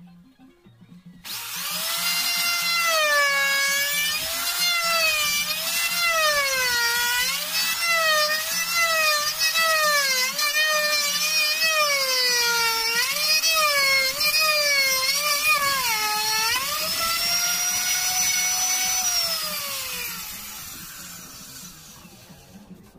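Handheld electric router whining as its bit cuts a door tenon in a wooden jig. The pitch dips and recovers again and again as the cut loads the motor. Near the end the pitch holds steady, then slides down and fades as the router is switched off and spins down.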